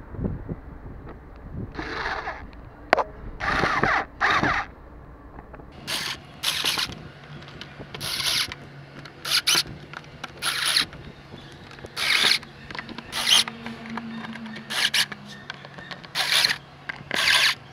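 Yellow USSU cordless electric screwdriver driving screws into the plastic air-filter housing, in about a dozen short bursts of the motor, each under a second, with pauses between them.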